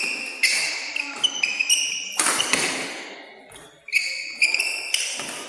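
Badminton rally: court shoes squeaking on the mat in many short high-pitched chirps, with sharp racket strikes on the shuttlecock echoing around the hall. A loud rushing burst about two seconds in is the loudest moment.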